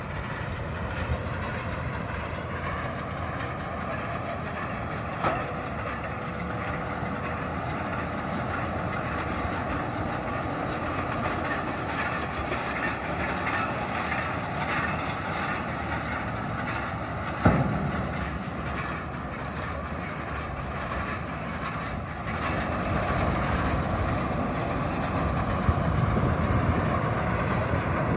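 Round baler at work: a steady mechanical running noise with a light, rhythmic clatter, a sharp clank about five seconds in and a louder one about seventeen seconds in, growing louder in the last few seconds.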